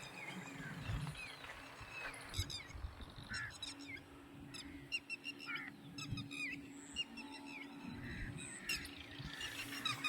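Birds calling with many short, repeated chirps, over a faint steady low hum that starts about four seconds in.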